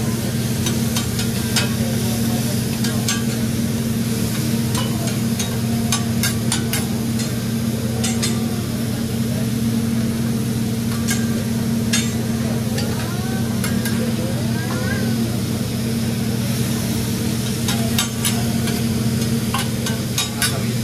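Food sizzling on a hot hibachi griddle, with irregular sharp clicks of metal spatulas striking and scraping the cooking surface over a steady low hum.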